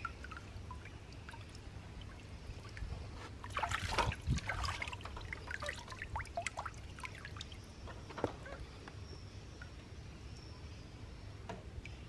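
Water dripping and trickling off a wet baby monkey into a shallow paddling pool, scattered drips throughout with a louder flurry of splashing about four seconds in.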